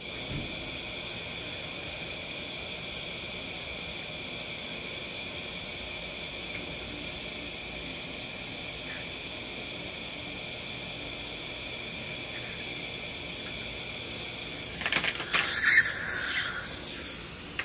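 Dental suction running with a steady high-pitched whistle. About fifteen seconds in, it turns to a louder rough hissing for a second or two as the suction tip draws air and fluid in the mouth during a tooth extraction.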